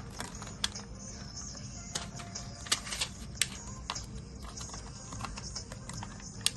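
Irregular small clicks and taps from handling a DDR4 SO-DIMM RAM stick and the open laptop's internals while the stick is being fitted, with a few sharper clicks. Background music plays throughout.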